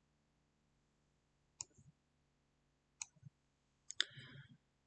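Faint computer mouse clicks: single clicks about one and a half and three seconds in, then two in quick succession near the end, followed by a brief rustle.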